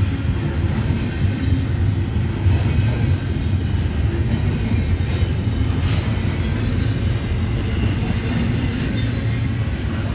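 A train rolling by with a steady low rumble from its wheels and cars, and a single sharp click about six seconds in.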